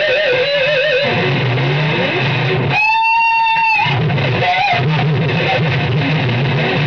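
Electric guitar played solo. It opens on a held note with wide, wavering vibrato, then moves into a low riff, with one long sustained high note about halfway through.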